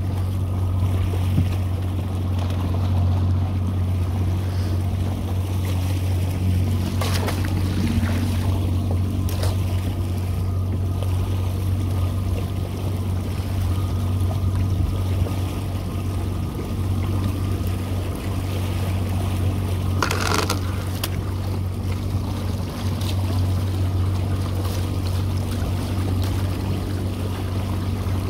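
Boat's outboard motor idling steadily as the boat creeps along a trotline, with a few brief noises over it, the longest about twenty seconds in.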